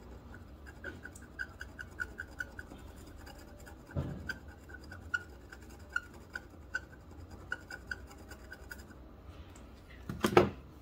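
Small hand-held pick scratching the coating off a motherboard's copper traces, a run of short, quick scratchy strokes against the board. A brief knock about four seconds in, and a louder handling bump near the end.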